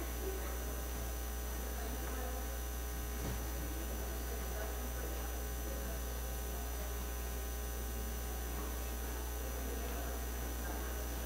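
Steady low electrical mains hum, with faint voices of people talking in the background.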